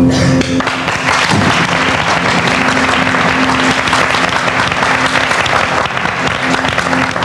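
Audience applauding steadily, with music playing softly underneath.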